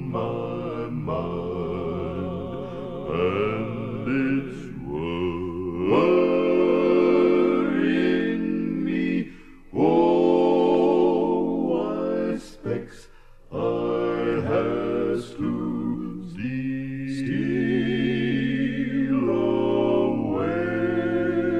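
Male gospel quartet (first and second tenor, baritone and bass) singing in close harmony, holding sustained chords, with a couple of short breaks between phrases.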